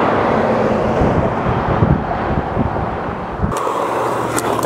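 Skateboard wheels rolling on rough asphalt, a steady rumble. About three and a half seconds in, the sound cuts to a board rolling on smooth concrete, with two sharp clicks near the end.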